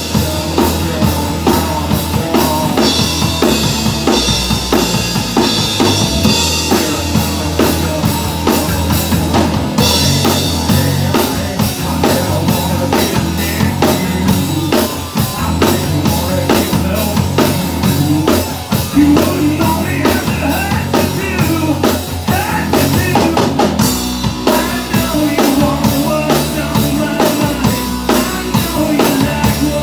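Live rock band playing loud: a drum kit keeping a steady beat under electric guitar and bass guitar.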